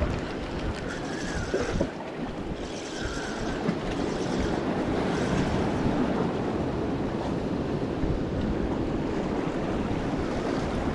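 Sea surf washing against rocks, a steady rush of noise, with wind buffeting the microphone.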